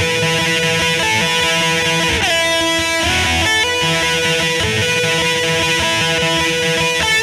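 Background music led by guitar, with long held notes and a note sliding down in pitch about two seconds in.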